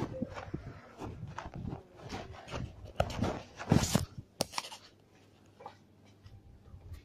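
Rustling, scraping and knocks from a phone being handled and moved about, loudest about three to four and a half seconds in, then dying down to a few faint clicks.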